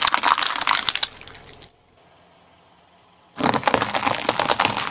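Car tyre rolling over a row of small plastic containers with yellow caps: a dense run of cracks and crunches that dies away about a second and a half in. After a short quiet gap, a second burst of cracking and crunching starts about three and a half seconds in as the tyre rolls over a pile of small toy fruits and vegetables.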